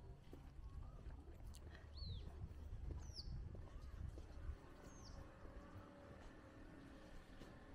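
Faint bird chirps: three short calls, each sliding down in pitch, about two, three and five seconds in, over a steady low rumble.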